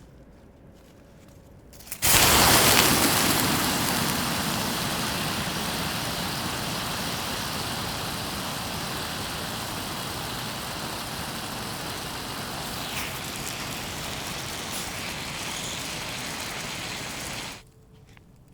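Lithium-ion cell of a nail-punctured power bank in thermal runaway: about two seconds in, it suddenly starts venting with a loud, harsh hiss of gas and flame. The hiss slowly fades over some fifteen seconds, then stops abruptly.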